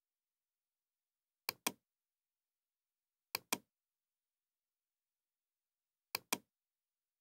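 Computer mouse button clicking three times, each click heard as a quick pair of sharp clicks, about a second and a half in, near the middle, and near the end.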